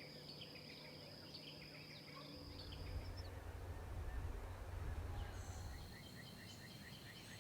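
Faint field recording of birds. A steady high insect-like drone with scattered small chirps gives way to a low rumble in the middle, and near the end a songbird sings a quick series of about six short, falling notes.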